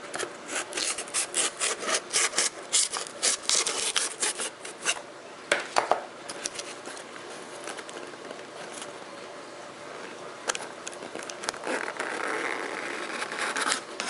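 Cardboard packaging rubbing and scraping as a sealed box is worked open by hand. There are quick scratchy strokes several times a second at first, a couple of sharper clicks about six seconds in, then softer rustling and a longer rub near the end.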